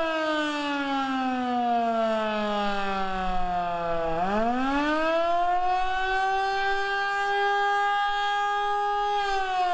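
Federal Signal Model 2 outdoor warning siren sounding the attack signal, a single tone with many overtones. Its pitch falls slowly for about four seconds, climbs quickly back up and holds steady, then starts falling again near the end.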